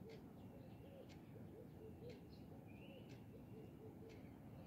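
Near silence with faint outdoor birdsong: scattered short chirps and a brief whistle, over a soft low call repeating about three times a second.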